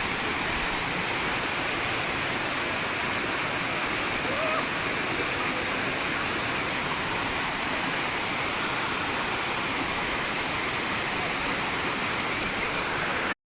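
Tumpak Sewu waterfall: the steady, even rush of falling water, cutting off abruptly near the end.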